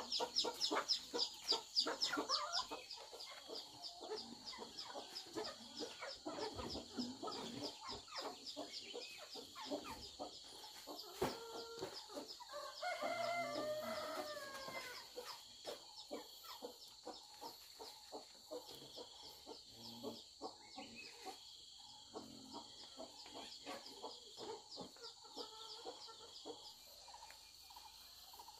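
Chickens clucking, with a rooster crowing once for about two seconds, about thirteen seconds in, over a steady high-pitched insect chirring.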